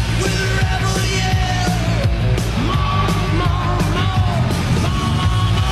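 Rock song playing, with sung vocals holding and bending long notes over a steady beat.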